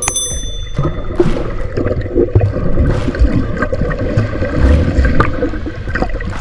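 Seawater churning and gurgling heard from underwater, with irregular low muffled thumps as the surf moves. A short bright chime, the subscribe-button bell sound, rings right at the start.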